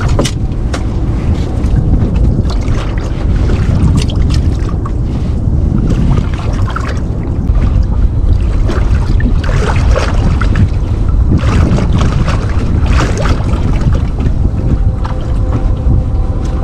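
Small fishing boat under way on its outboard motor: a steady loud rumble, with wind buffeting the microphone and frequent crackling splashes.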